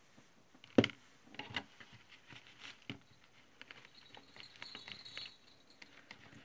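Small items handled on a table: a sharp click a little under a second in, then scattered light knocks and taps, with crinkling plastic packaging around four to five seconds in.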